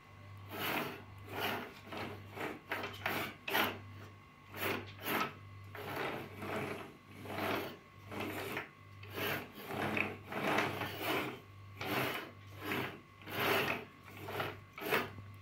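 Plastic toy tractor's wheels rolling back and forth on a tabletop: a rough scraping rumble in short strokes, about one or two a second.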